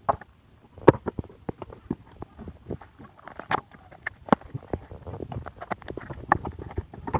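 Charred roasted turtle shell being pried and broken apart by hand on bamboo slats: irregular sharp cracks and clicks with knocks against the bamboo. The loudest crack comes about a second in.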